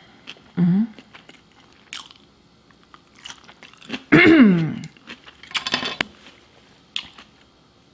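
Close-up mouth sounds of people eating sushi: chewing and biting with wet clicks and some crunch. There is a brief voiced sound under a second in and a louder one, falling in pitch, about four seconds in.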